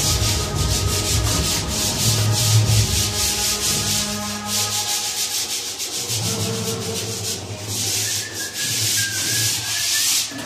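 Hand sanding of dried wall putty: several painters rubbing it down with sandpaper at once, a dense run of rapid, scratchy back-and-forth strokes.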